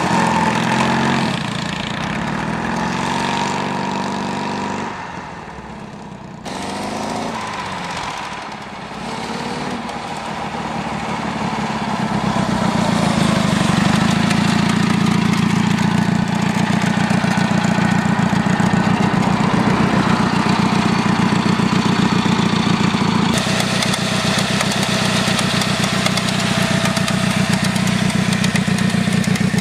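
1931 Douglas A32's 350 cc horizontally opposed twin running, fading as it rides away, then growing louder as it comes back and settling into a steady, even beat for the second half. The mechanical slapping comes from the open, un-oiled primary drive chain.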